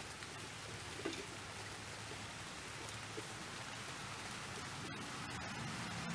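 Steady rain falling outdoors, an even hiss with a faint knock about a second in.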